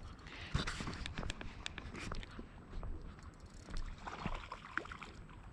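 Small waves sloshing against a stone quay wall, with scattered sharp clicks and knocks throughout.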